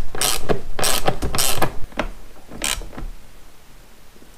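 Socket ratchet wrench clicking in short strokes as it tightens the bolt that holds a motorcycle seat's passenger grab loop. The strokes are quick and strong for the first couple of seconds, with one more near three seconds, then it goes quiet.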